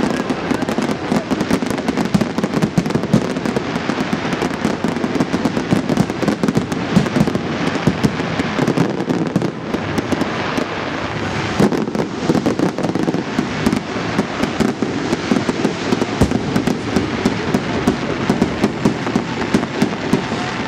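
Large fireworks display: aerial shells bursting in rapid, overlapping bangs and crackles with no let-up.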